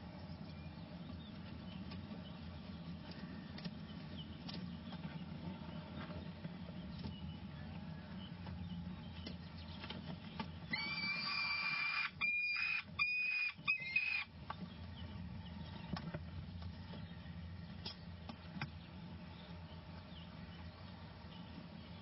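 Peregrine falcon nest box: a steady low hum with scattered faint ticks, and about halfway through a loud, high-pitched falcon call held at one pitch for some three seconds, chopped into short pieces by abrupt dropouts.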